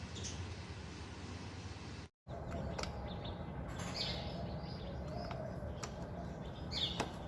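Birds chirping now and then over a steady low background hum, with a brief total break in the sound about two seconds in.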